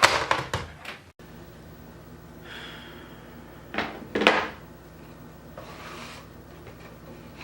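A quick cluster of clattering knocks, then an abrupt cut to a steady low electrical hum, with two sharp knocks in close succession about four seconds in.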